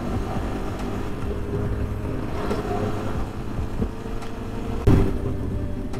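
Motorcycle engine running steadily while riding. A brief loud thump comes about five seconds in.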